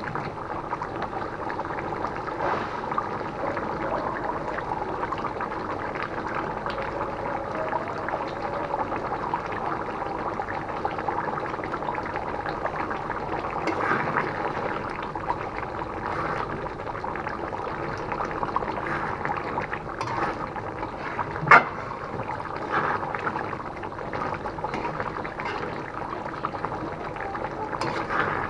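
Thick beef curry gravy simmering and bubbling in an aluminium karai, stirred now and then with a spatula. One sharp knock comes about three-quarters of the way through.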